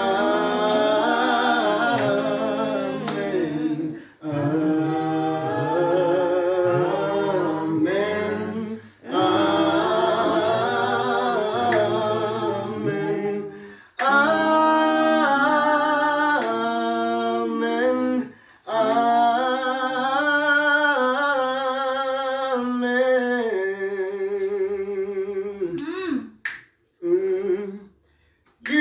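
Solo voice singing a slow worship song a cappella, with wavering, ornamented held notes in phrases broken by short pauses, and sharp finger snaps now and then.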